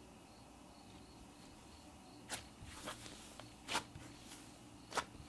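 A coral-pink cloud slime being pressed and poked by hand, giving a few short, sharp pops and crackles in the second half.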